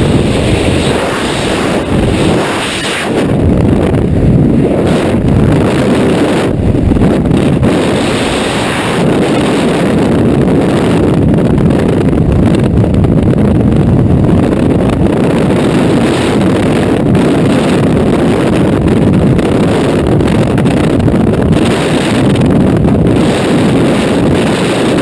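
Freefall wind buffeting a skydiver's helmet-mounted camera microphone: a loud, steady rush of wind, heaviest in the low end, with a brief dip about two to three seconds in.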